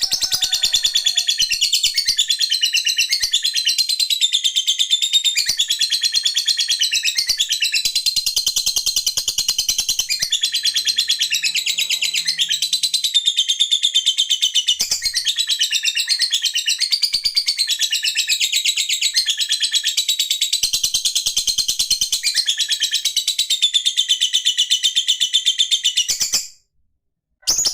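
A lovebird singing its 'ngekek': one long, unbroken run of rapid, high-pitched chattering trills that goes on for about 26 seconds. It breaks off abruptly, and a couple of short bursts follow near the end.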